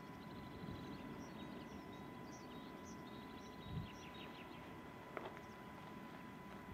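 Faint outdoor ambience: small birds giving short, high chirps over a low rumble of wind on the microphone, with one soft low thump about four seconds in.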